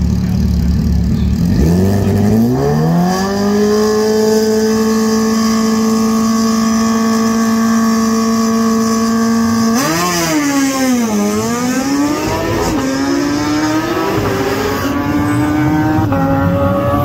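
Sport motorcycle engine at a drag strip start line: the revs climb and are held steady for several seconds. About ten seconds in, the bike launches, its engine note rising and dropping with each upshift as it pulls away down the track.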